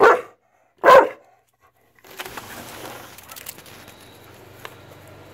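A 13-year-old American Pit Bull Terrier barks twice, loud and short, about a second apart. About two seconds in, a steady low hiss with scattered faint clicks follows.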